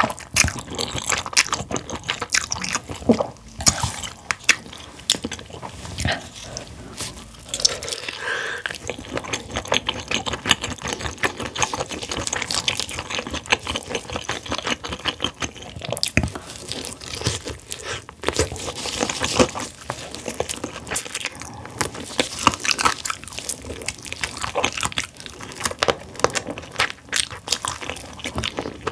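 Close-miked eating: wet chewing, lip smacks and bites into sauced roasted chicken wings, heard as many small sticky clicks and crackles throughout.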